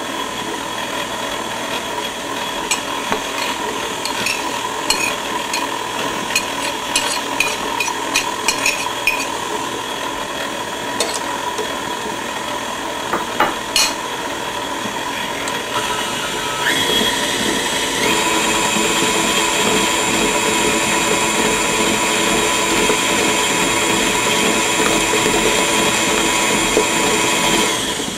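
KitchenAid tilt-head stand mixer running, its flat beater turning through stiff spritz cookie dough as the almonds are blended in, with light clicks and ticks in the first half. About 17 s in the motor steps up louder and higher in pitch and runs steadily from there until just before the end.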